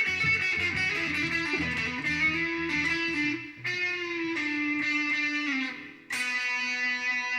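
A blues tune played on guitar, low bass notes under a single-note melody line. About six seconds in it drops out briefly, then one chord is struck and left to ring.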